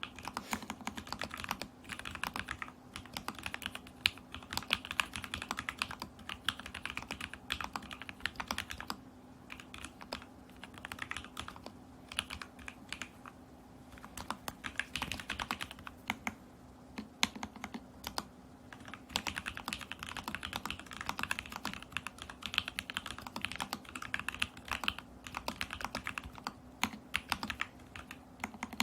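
Stacked acrylic Alice-layout mechanical keyboard with lubed and filmed Lavender switches and a tape-modded PCB, typed on in quick, irregular bursts of keystrokes with short pauses between them.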